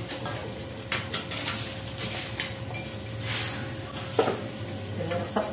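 Metal spatula and slotted ladle clinking and scraping against a wok as pieces of fish are stirred into a simmering spiced sauce, with irregular knocks over a faint sizzle.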